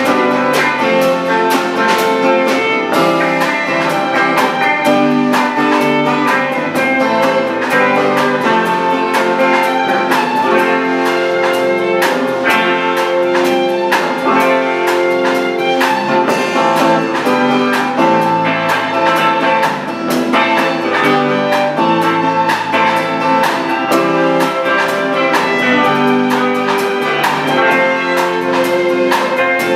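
Live band playing an instrumental passage: violin over electric guitars, bass guitar and drum kit.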